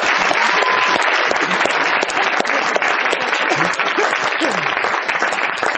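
Audience applauding, a dense steady clapping that begins to thin near the end.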